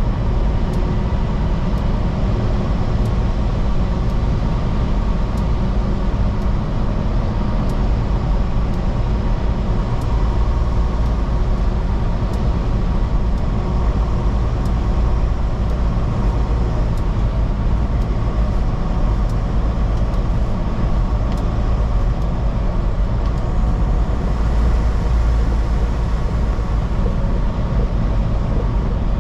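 Steady drone inside a semi-truck's cab at highway speed: engine and road noise running on without change.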